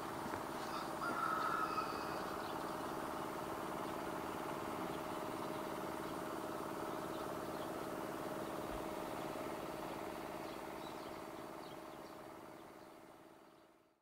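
A steady mechanical hum holding two level tones, with a brief bird call about a second in; the sound fades out near the end.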